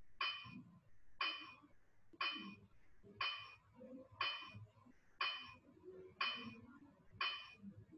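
Countdown timer sound effect: a short, bright, clink-like tick with a brief ring, repeating about once a second, eight ticks in all.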